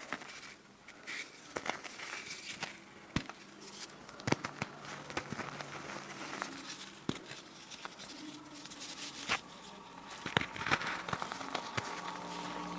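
Reformed gym chalk, soft with a slight crust, being squeezed and crumbled by hand. It gives an irregular stream of small, crisp crackles and crunches as the chunks break apart.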